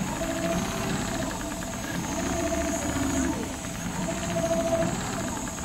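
Large Richpeace CNC sewing machine stitching a pattern into heavy upholstery material: a steady, rapid needle chatter over machine hiss, with a whine that comes and goes several times as the sewing head travels.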